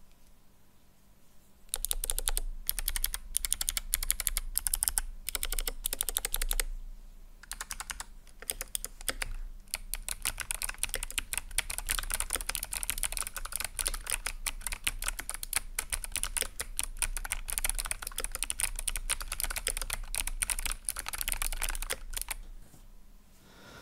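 Typing on a mechanical keyboard with clicky Kailh Box Jade switches under tall SA-profile keycaps: loud, crisp clicks on every keystroke. It starts with a few separate presses, then runs on as fast continuous typing for most of the stretch.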